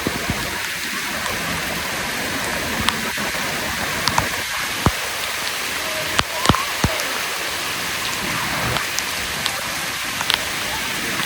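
Steady rain falling in hurricane weather, a constant hiss with a few sharp drip-like taps about halfway through.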